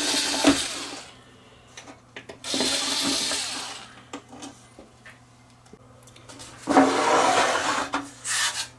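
Handheld power screwdriver whirring in three short runs as it backs screws out of the amplifier's metal case. Small clicks and knocks of the screws and the case being handled come between the runs.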